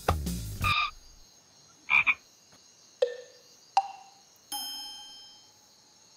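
Comic sound effects laid into the edit: background music stops just under a second in, then a few short, separate cartoon-style sounds, then a chime-like tone that rings and fades over about a second and a half.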